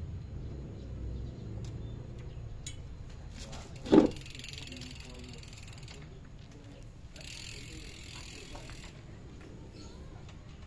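Handling a mountain bike's rear wheel and disc brake after new pads are fitted: one loud short thud about four seconds in, then two stretches of hiss, each about two seconds long.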